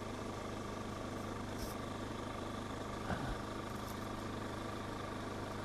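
A steady mechanical drone like an idling engine, with a faint continuous high whine over it and a brief small sound about three seconds in.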